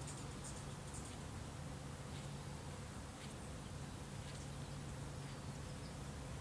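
Quiet outdoor background: a steady low hum with a few faint, brief high chirps scattered through it.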